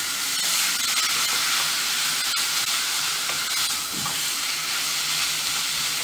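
Canned tuna frying with garlic and onion in a pot, a steady sizzling hiss, stirred with a wooden spatula that scrapes lightly against the pan.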